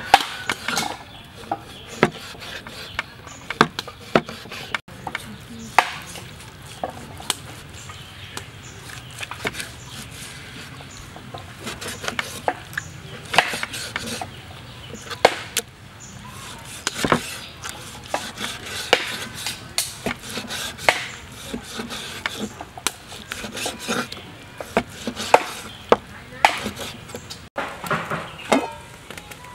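Cleaver chopping raw meat on a wooden cutting board: irregular sharp knocks of the blade into the board, sometimes in quick runs. Near the end, a cloth rubs over a metal pot lid.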